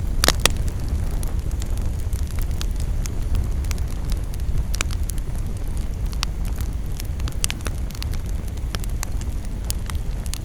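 Campfire burning, with frequent sharp crackles and pops over a steady low rumble. One loud snap comes just after the start.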